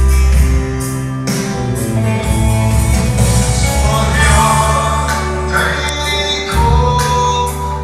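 A gospel song: a man singing into a microphone over amplified band accompaniment, with a strong bass line and a steady drum beat.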